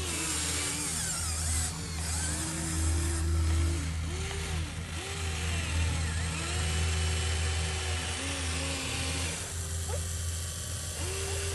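Radio-controlled model excavator's motors running under load as it digs: a steady low hum with a whine that rises and falls in pitch over and over as the arm and bucket move.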